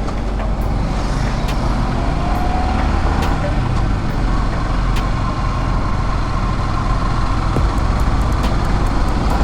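Motorcycle running at a steady cruising speed on the road, a continuous engine and road rumble with no change in pace.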